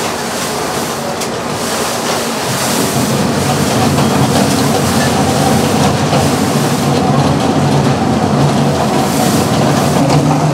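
Commercial drum potato peeler running, with potatoes tumbling and rumbling against its spinning base as the peel is scrubbed off. The steady mechanical din grows louder about two and a half seconds in.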